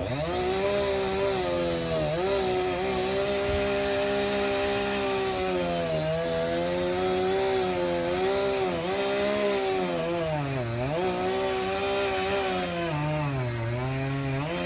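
Two-stroke chainsaw running at high revs while cutting into wood. Its pitch dips several times as the saw bogs under load, most deeply about ten and a half seconds in and again near the end.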